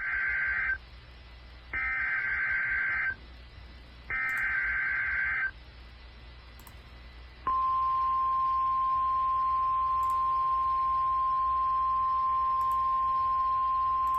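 Emergency Alert System SAME header: three harsh digital data bursts of about a second each, about a second apart. About two seconds later a steady single-pitch 1050 Hz NOAA Weather Radio warning alarm tone starts and holds, the signal that a warning message follows.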